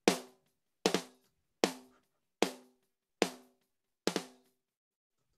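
Soloed snare drum track played back through a compressor set at about 2:1. Six evenly spaced hits a little under a second apart, each with a short ringing tone, the last one doubled. Playback stops about four and a half seconds in.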